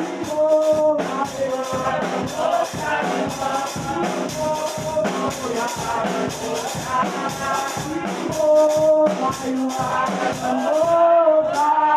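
Live church worship music with a steady beat and long held melody notes.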